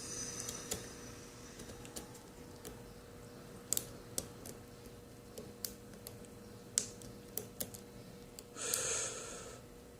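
Light, irregular clicks and ticks of a lock pick and tension wrench working the pins of a five-pin mortise cylinder, with a short hiss about nine seconds in.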